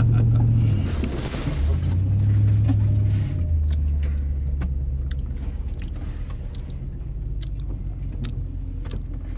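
Off-road truck's engine pulling under throttle, twice easing off, then settling to a lower, quieter steady run from about three seconds in, with scattered sharp clicks and knocks over it.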